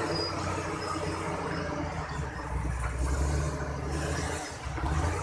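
Diesel engine of a heavily loaded log truck labouring at low speed through deep mud, a low steady drone that swells about halfway through, dips briefly and rises again near the end.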